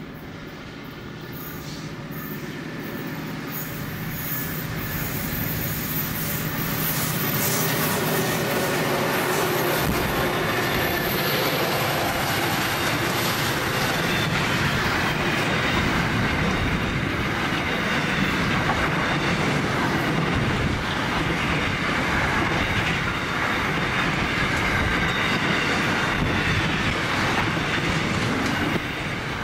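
Container freight train hauled by G class diesel-electric locomotives, the engines growing louder over the first several seconds as it approaches, then the loaded container wagons rolling past close by with steady wheel-on-rail clatter and a high squeal from the wheels.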